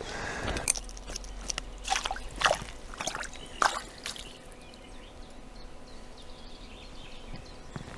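Small splashes and drips of water, a handful in the first four seconds and fewer after, over a faint steady stream sound, as a freshly landed grayling is handled and unhooked in the water.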